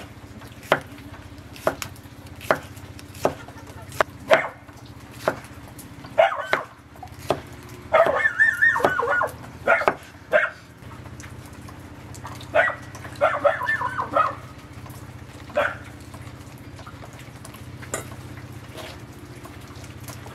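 Kitchen knife chopping cucumber on a wooden cutting board in steady strokes a little under a second apart. From about six to fourteen seconds in, a dog barks in short bursts, and a few more chops follow.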